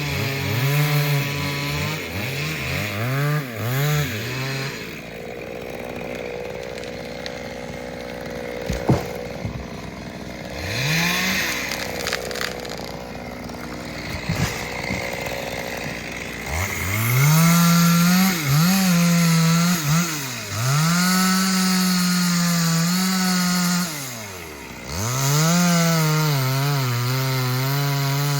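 Two-stroke chainsaw cutting wood, revving to full throttle in repeated bursts and falling back between them. It drops to idle for about ten seconds in the middle, then cuts again at full speed near the end.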